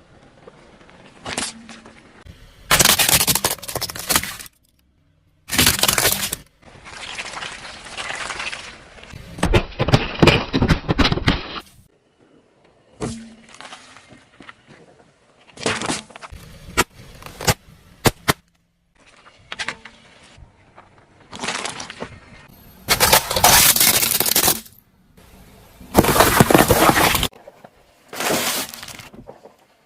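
Car tyres rolling over and crushing objects: a series of short, separate bouts of loud crunching, cracking and breaking, split by abrupt cuts.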